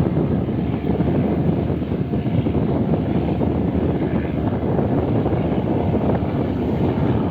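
Tugboat engine running steadily under way towing a barge, mixed with wind buffeting the microphone.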